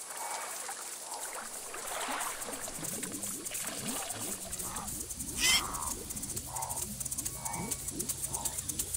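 Wetland ambience of waterbird calls repeating about once a second at the water's edge. From about halfway, a low steady hum and quick rising chirps join in, and there is one brief sharp sound about five and a half seconds in.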